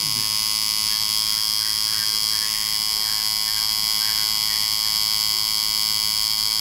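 Electric tattoo machine buzzing steadily as its needle works over an existing tattoo on skin.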